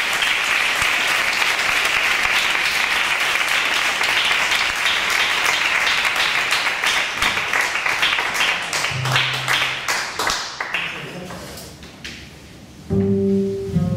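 Audience applause that thins to scattered claps and dies away, then a double bass comes in with low held notes near the end.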